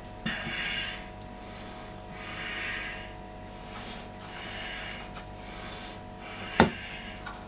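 A person breathing heavily through the nose close to the microphone, four breaths about two seconds apart, with one sharp tap near the end.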